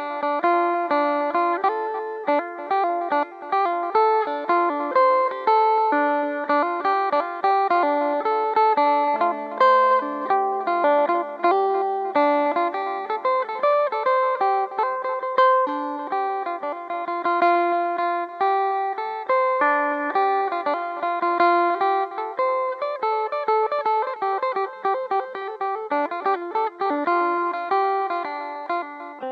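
Two-string phin, the Isan plucked lute, played solo: a fast, continuous melody of plucked notes.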